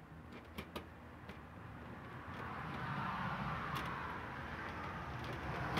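A few light clicks of a hand screwdriver working the camera mount's screws in the first second or so, then a steady rush of road-vehicle noise that swells about two seconds in and stays.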